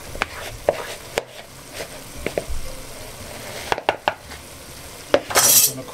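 Wooden spoon stirring flour-and-paprika-coated beef cubes in a plastic mixing bowl, with scattered light knocks of the spoon against the bowl and a brief louder scrape near the end.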